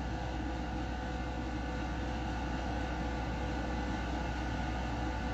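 Steady room background noise: a constant low hum under an even hiss, with no changes or distinct events.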